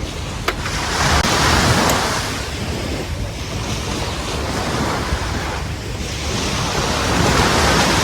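Sea waves breaking and washing up a beach, swelling twice: about a second in and again near the end. Wind rumbles on the microphone throughout.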